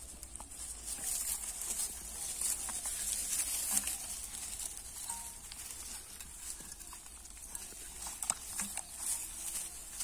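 Pit bull puppies suckling at their mother: scattered small smacking clicks and dry straw rustling as they shift, over a steady high hiss.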